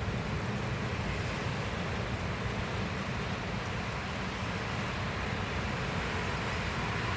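Steady rain falling, an even hiss without breaks, over a low rumble of wind on the microphone.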